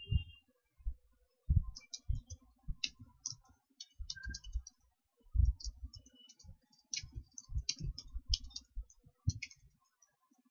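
Typing on a computer keyboard: irregular key clicks, each with a dull thud, in short uneven runs.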